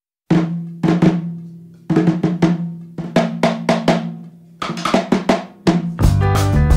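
Intro jingle music: short groups of drum hits, each ringing away with gaps between, then the full band comes in near the end.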